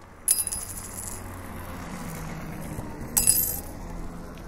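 Coins clinking and jingling twice, once just after the start and again about three seconds in, each ringing briefly, over steady low street ambience.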